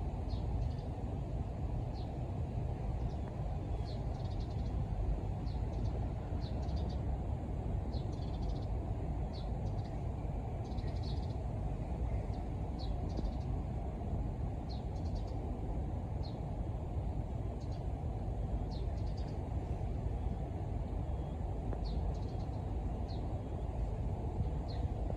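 Birds chirping: short, high calls repeating irregularly about once a second, over a steady low rumble.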